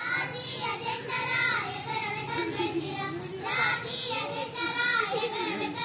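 A group of schoolchildren singing together in unison, with held notes and a brief pause about three seconds in.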